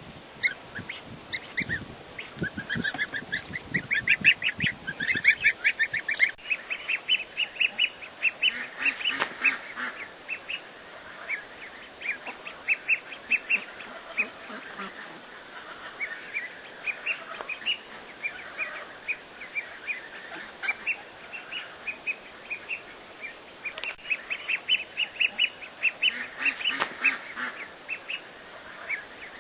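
Baby poultry peeping: a rapid string of short, high peeps, thickest in the first few seconds and again near the end.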